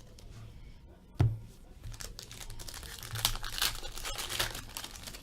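A sharp knock about a second in, then crinkling and tearing as a foil wrapper on a 2015-16 Upper Deck Portfolio hockey card pack is ripped open.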